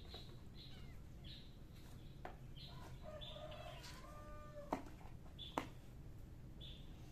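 Small birds chirp again and again in the background, and a fowl gives a drawn-out call about three to four seconds in. Two sharp knocks, the loudest sounds, come just under a second apart near the middle.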